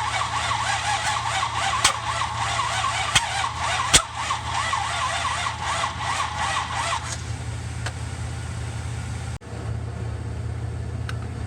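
Starter cranking the 1966 Buick Riviera's V8 with a pulsing whine for about seven seconds without it catching, then stopping. Three sharp pops during the cranking: the carburettor spitting back, as the engine fails to start.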